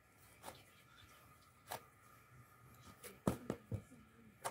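Dough being kneaded by hand on a floured metal tray: irregular soft slaps and knocks as the dough is pushed, folded and turned against the metal, with a quick cluster of them about three seconds in.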